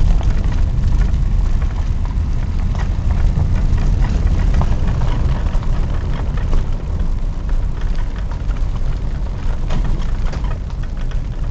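Vehicle running down a road, heard from inside: a steady low rumble of engine and tyres with frequent small knocks and rattles.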